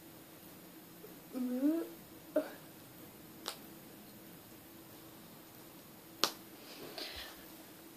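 A person's brief hummed murmur, rising in pitch, about a second and a half in, and a few separate sharp clicks, the sharpest near the end, over a faint steady hum.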